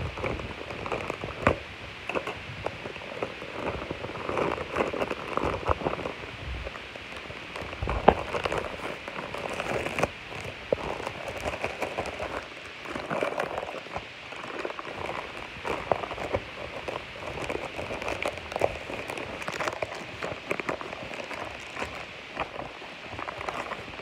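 Cardboard shipping box and plastic wrapping being handled and opened close to the microphone: continuous crackling and rustling, with scattered taps and knocks.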